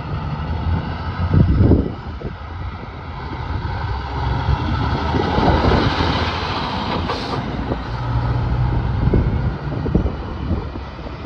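Diesel engine of a Kenworth cab-over truck hauling two refrigerated trailers, running steadily under load as it drives close past. It gets louder as it comes alongside about five to six seconds in, and there is a short hiss about seven seconds in. A loud burst comes about a second and a half in.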